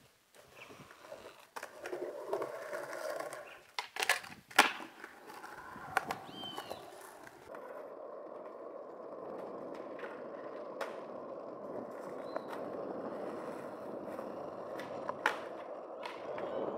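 Skateboard on hard ground: sharp clacks of the board hitting the ground in the first few seconds, the loudest about four and a half seconds in, then the wheels rolling steadily with a few more clicks.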